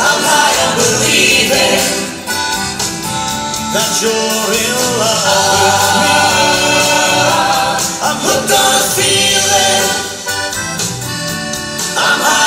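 A mixed group of male and female singers performing a 1970s pop song on microphones, with instrumental accompaniment and a steady beat.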